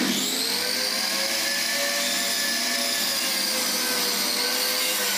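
Mitre saw motor coming up to full speed and running with a steady high whine as its toothed blade cuts through a wooden board.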